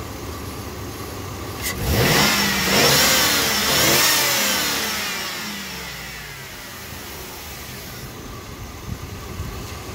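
Cadillac Escalade's V8 idling, then revved up about two seconds in, climbing for a couple of seconds before dropping back down to idle.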